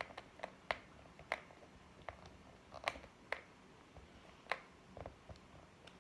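Faint, irregular small clicks and taps, about a dozen over several seconds, from test leads, clips and circuit parts being handled while a simple battery-and-bulb circuit is hooked up.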